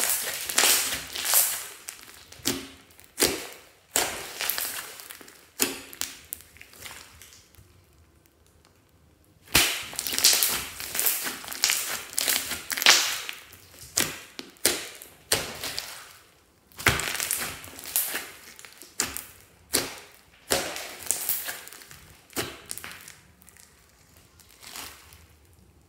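Hands squeezing, folding and pressing a large mass of glossy slime mixed with foam beads: repeated wet squishing and crackling, in bursts about a second apart. There is a pause of a couple of seconds about a third of the way through.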